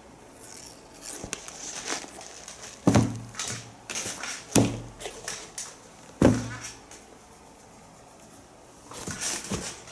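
Sneakers being handled and turned over, with rustling and three dull knocks about three, four and a half, and six seconds in, then a few more rustles near the end.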